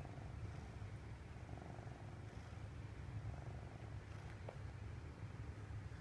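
A domestic cat purring, the purr swelling with each breath about every second and a half, contented as it is scratched. A small click sounds once, near the end.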